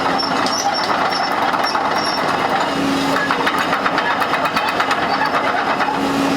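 Hitachi EX200-2 hydraulic excavator running steadily, a dense mechanical din with a low hum that fades in and out. A rapid clatter of clicks sets in around the middle.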